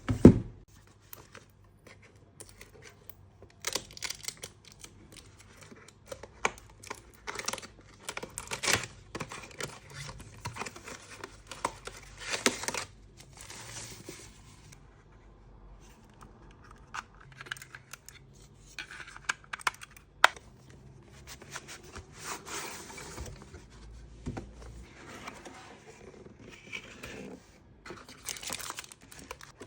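Unboxing a mechanical keyboard: packaging handled, with plastic wrap crinkling and tearing, broken by irregular clicks and knocks.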